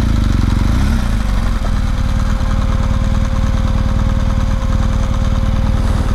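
BMW R1200GS Adventure's flat-twin boxer engine idling steadily with the bike standing still.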